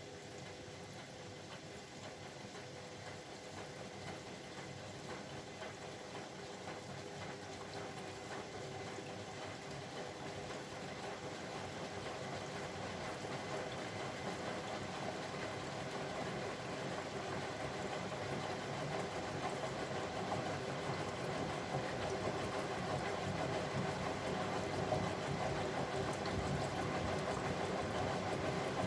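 Bosch Maxx WFL 248Y washing machine running, a steady mechanical hum and rush that grows gradually louder.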